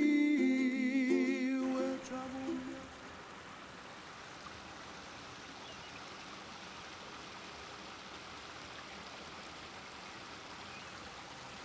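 Background music ends about a second and a half in. It is followed by the steady soft splash of running fountain water.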